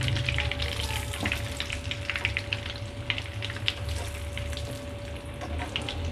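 Oil sizzling and crackling as chicken shami kabab patties shallow-fry in a frying pan over low-medium heat, a busy scatter of small pops and spits over a faint steady hum; the patties are nearly done, golden on both sides.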